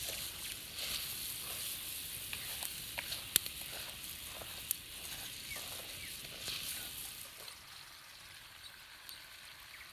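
Rice sizzling in melted butter in a frying pan as it is stirred with a wooden spoon to soak up the butter, with a few sharp clicks. The sizzle fades away near the end.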